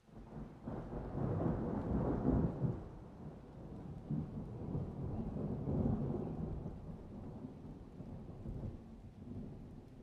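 Rain with a low, rolling rumble of thunder that comes in at the start. The rumble swells about two seconds in and again around six seconds, then slowly eases off.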